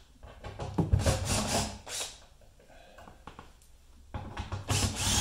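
Two short bursts of rough scraping and rasping, about a second in and again near the end, from metal-on-metal work as the under-dash bolts holding the wire harness are backed out with a cordless drill and socket.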